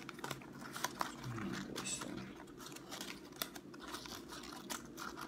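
White printer paper rustling and crinkling by hand, with scattered small clicks and scrapes, as folded paper units are tucked together into an origami cube.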